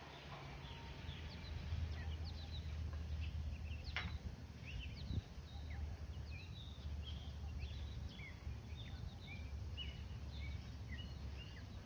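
Many small birds chirping in short, quick calls, over a steady low rumble of outdoor background noise, with one sharp click about four seconds in.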